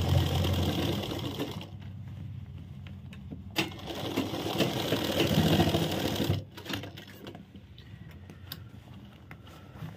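Black straight-stitch sewing machine sewing a seam along the edge of a trouser fly, in two spells: one at the start and another from about four seconds that cuts off suddenly past six seconds. Quieter pauses with a few light clicks come between.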